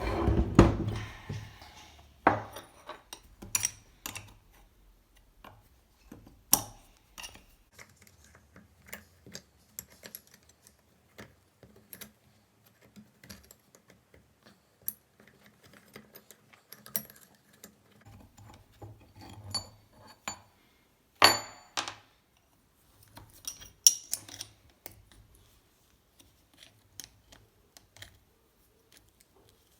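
Metal parts of a rusty bench vise being handled on a workbench: scattered clinks and knocks, with a few louder clanks about two seconds in and twice more later on.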